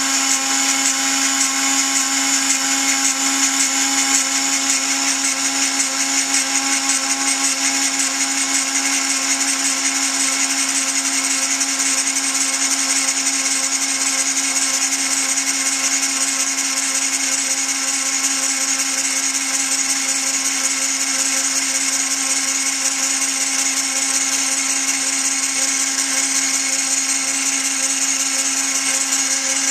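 Dremel-type rotary tool driving a homemade tool post grinder, its small grinding point grinding the jaws of a turning 7x mini lathe chuck. A steady high-speed whine with many overtones and a hiss on top, running evenly without change.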